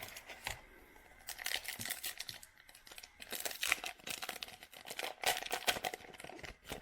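Basketball trading cards and their foil pack being handled, with crinkly rustling that comes in several bursts.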